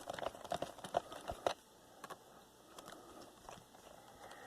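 Light, quick clicks and taps of a small screwdriver turning a screw into a laptop's plastic case. They stop about a second and a half in, leaving a few faint ticks.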